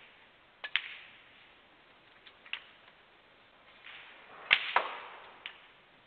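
Snooker balls clacking: a cue tip strikes the cue ball, and the cue ball clicks into an object ball a moment later. More ball-on-ball clicks follow a couple of seconds in. A second shot about four and a half seconds in gives the loudest pair of sharp clacks, then one lighter click.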